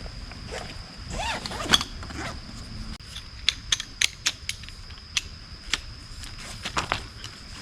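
Small hard objects being handled: scraping and rustling, then a run of sharp, irregular clicks and clinks, over a faint steady high-pitched tone.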